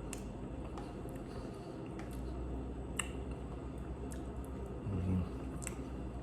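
Someone eating a meal: a few sharp clicks of a utensil against a food container and a short low sound about five seconds in, over a steady low hum.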